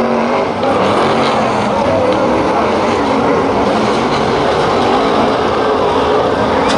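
A pack of V8-engined BriSCA F1 stock cars racing together, many engines revving at once with pitches shifting up and down. There is one sharp knock near the end.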